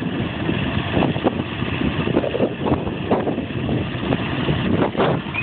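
Tractor engine running while ploughing, with wind buffeting the microphone in uneven gusts.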